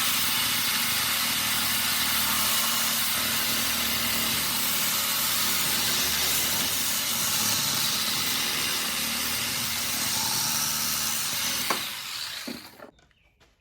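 Power saw running steadily as it cuts through a microwave magnetron's steel casing and copper, then winding down and stopping near the end.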